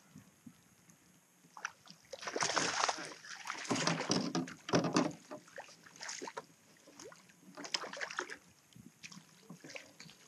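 Water sloshing and splashing against a kayak in irregular bursts, with a few sharp knocks.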